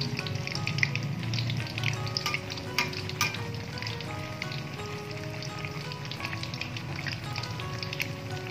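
Fuyunghai, an egg omelette with chicken and shrimp, deep-frying in hot oil in a wok: steady sizzling and crackling, with a few sharp clicks in the first three or four seconds.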